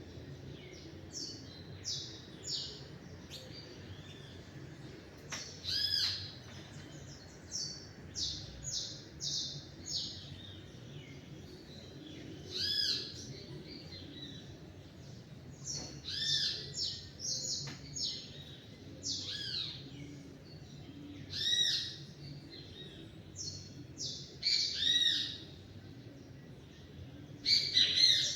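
Several songbirds calling and chirping: short, high, repeated notes and arched whistled calls every second or two, over a faint steady background hum.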